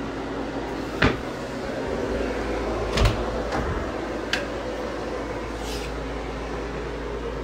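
A handful of sharp clicks and knocks over a steady hum, the loudest about three seconds in, and a brief hiss near six seconds.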